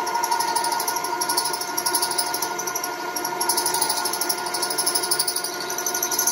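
Vertical milling machine cutting a slot in a steel part with an end mill: a steady spindle whine with a high, rapid chatter from the cutter that swells and fades, the "bit of vibration noise" of the cut.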